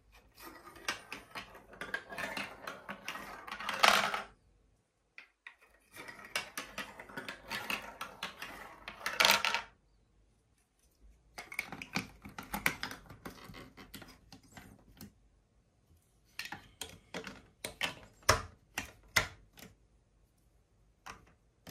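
A small plastic ball rolling down a plastic block-built marble run, rattling along the chutes and spiral pieces in three stretches of a few seconds each. The first two stretches end in a loud clack. Near the end comes a string of separate sharp clicks and knocks.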